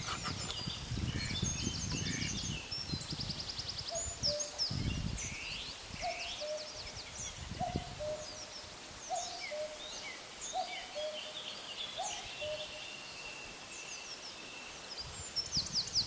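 Spring woodland birdsong from several birds at once: quick high trills, chirps and falling phrases, with a lower two-note call repeated about every second and a half through the middle. A low rumble runs under the first few seconds.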